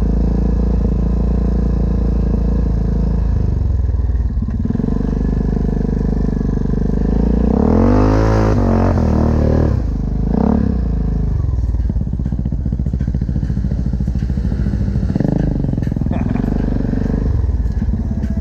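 Yamaha Grizzly ATV's single-cylinder four-stroke engine running steadily while riding a trail. About eight seconds in it revs up and back down, and it revs briefly again around ten and fifteen seconds in.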